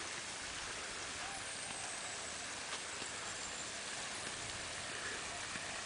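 Steady outdoor background hiss, with a faint thin high tone from about one and a half to nearly three seconds in.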